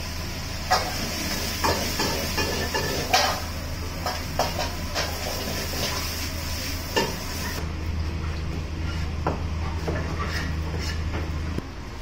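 Stir-frying in a wok over a gas wok burner: food sizzling over a steady low rumble, with the metal ladle clanking and scraping against the wok at irregular intervals. The sizzle drops out a little past halfway, and the rumble stops shortly before the end.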